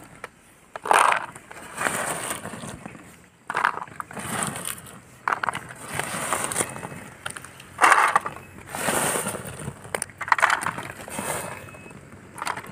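Dried ber (jujube) fruits clattering and rustling against plastic toy dump trucks as they are handled and loaded. The sound comes in irregular bursts every second or two.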